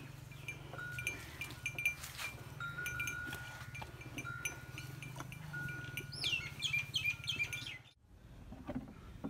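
Calf drinking water from a plastic bucket, with small clicks and knocks over a steady low hum. A few birds chirp near the end, and the sound cuts out suddenly about eight seconds in.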